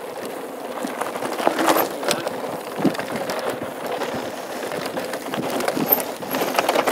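Mountain bike, a 2013 Norco Truax hardtail, rolling fast down a dry dirt and gravel trail: knobby tyres crunching over loose stones, with steady rattling and clattering from the bike over bumps.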